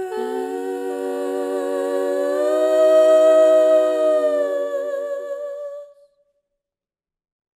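Several voices hum a sustained chord in harmony, with vibrato. The sound swells about three seconds in, then fades out and stops about six seconds in.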